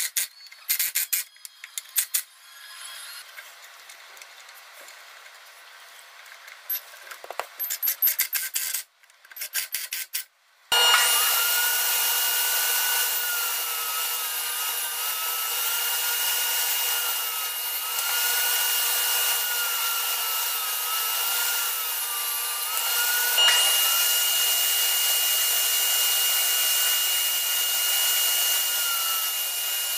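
Screws being driven into wood with a screwdriver, heard as clusters of quick clicks. About 11 s in, a table saw starts running and cuts a plywood panel: a loud steady noise with a high motor whine and a lower tone that dips and wavers as the blade takes the wood.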